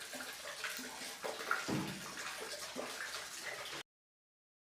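Steady rushing noise with a few short knocks, which cuts off abruptly a little under four seconds in.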